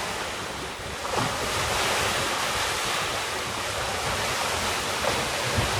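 Steady rush of wind and breaking water, with wind buffeting the microphone; it swells a little about a second in.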